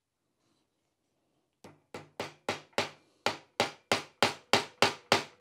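Ball-peen hammer driving a pivot pin into a Porsche G50 clutch and brake pedal cluster: a quick, even series of about a dozen sharp metal strikes, roughly three a second. They start about a second and a half in and grow louder.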